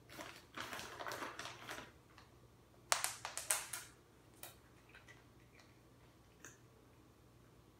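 A cat scampering after a treat on a hard floor: quick pattering clicks of paws and claws, a louder cluster of sharp clicks about three seconds in, then a few faint ticks.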